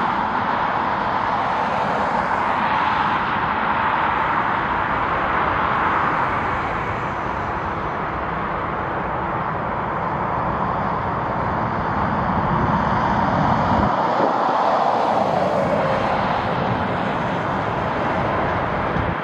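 Jet airliner engines passing close by: a steady rushing jet noise, with a whine that drops in pitch about two-thirds of the way through as the aircraft goes past.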